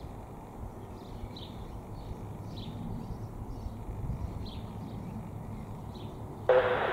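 Distant low jet rumble from a Boeing 767 freighter passing high overhead, slowly growing louder, with a small bird chirping repeatedly. Near the end, air-band radio chatter cuts in suddenly and is the loudest thing heard.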